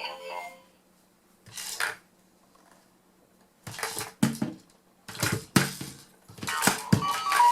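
Rattle of an ELC Light & Sound Wobble & Glow baby toy shaken in four short bursts with pauses between. The toy's electronic tune fades out just after the start and begins again near the end.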